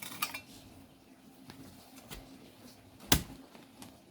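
Faint scattered clicks and light knocks, with one sharp knock about three seconds in.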